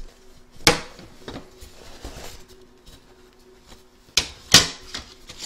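Plastic embroidery hoop being taken apart to free the stitched block: a sharp clack about two-thirds of a second in and two more close together near the end, with soft rustling of fabric and stabilizer between.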